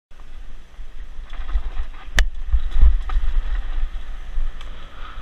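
Pivot Mach 5.7 full-suspension mountain bike ridden over a rough dirt trail, heard from a camera mounted on bike or rider: steady low wind buffeting on the microphone with tyre crunch and rattles, and a sharp knock about two seconds in.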